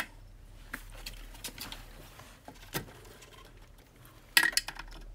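Scattered clicks and light knocks of a consumer unit and hand tools being handled against a wall, with a louder cluster of rattling clicks about four and a half seconds in.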